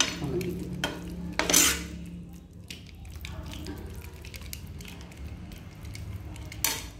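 A utensil stirring and scraping thick tomato-and-onion sauce around a frying pan, with a soft sizzle under it. The loudest scrape comes about one and a half seconds in, and another comes near the end.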